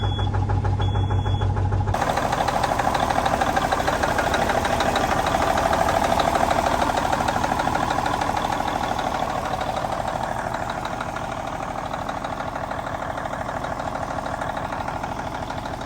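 Cummins N14 inline-six diesel in a semi truck idling steadily shortly after starting, with an even pulse from its firing. Its tone shifts about two seconds in and it slowly grows quieter through the second half.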